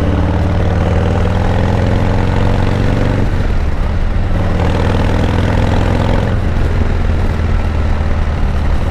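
Harley-Davidson Softail Deluxe's Milwaukee-Eight V-twin under acceleration, the engine note climbing through the gears with two upshifts, about three and six seconds in. The engine is new and not yet run in.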